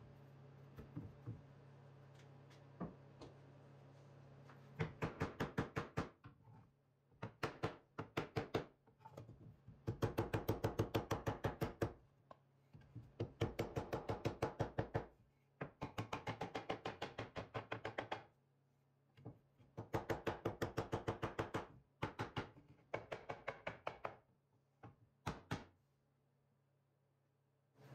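Hammer rapidly striking a spruce board, blows coming about eight a second in bursts of one to two seconds with short pauses, beating dents into the wood to distress it for an aged look. A few faint taps come before the first burst.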